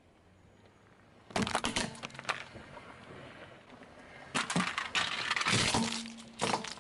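Hard plastic cracking and crunching under a car tyre, in two bouts: a short burst of sharp cracks about a second in as a plastic game cartridge is run over, then a longer run of crunching and snapping from about four and a half seconds in as a plastic toy dump truck is crushed.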